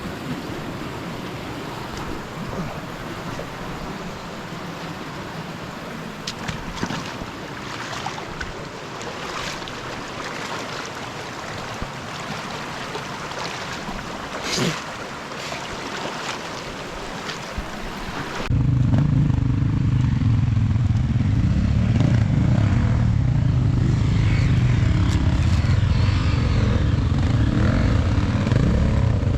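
Steady outdoor rushing of river water and wind with scattered light clicks, then an abrupt cut about 18 seconds in to a louder, steady low drone of a vehicle engine running.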